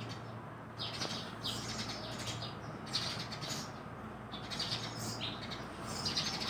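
Homemade slime being mixed and squished by hand, giving repeated short, crackly squelches over a faint steady hum.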